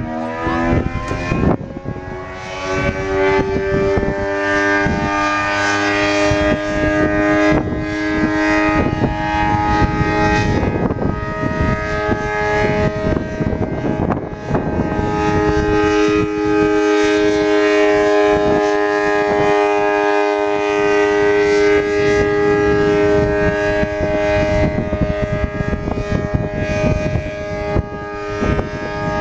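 ACA Allertor 125 outdoor warning siren winding up, its tones rising in pitch over the first couple of seconds, then holding a steady alert tone of several pitches. Its loudness swells and fades about every twelve seconds as the siren head rotates.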